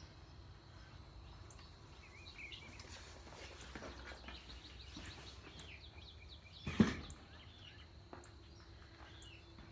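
Faint birdsong over low outdoor background noise, broken by one sharp thump about seven seconds in.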